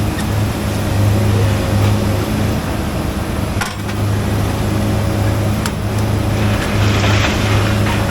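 A vehicle engine idling steadily, a low even hum, with a single clank about three and a half seconds in.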